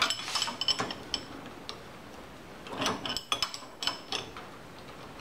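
Metal hand tools clinking and tapping: wrenches and sockets handled and tried on a steel nut of a sickle bar's blade coupling. The clinks come in a short cluster at the start and another group a little after halfway, with single taps between.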